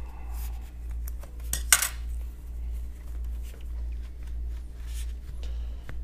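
Plastic keycaps clicking and clattering as they are handled and set down while being wiped clean, with one sharp clack a little under two seconds in, over a steady low hum.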